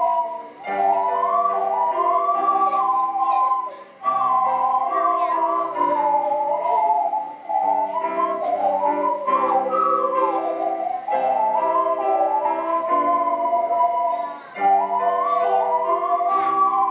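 An ocarina ensemble playing a lively Baroque-style duet, two ocarina parts weaving around each other over a piano accompaniment. The music pauses briefly between phrases a few times.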